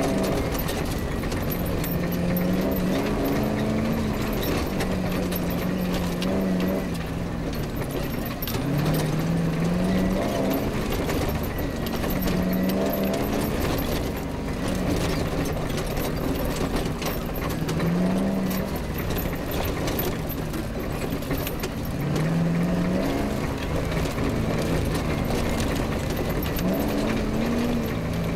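Off-road rally car's engine under hard driving over rough grass and dirt, its note repeatedly climbing and dropping as the revs rise and gears change. Knocks and rattles come from the body jolting over the bumps.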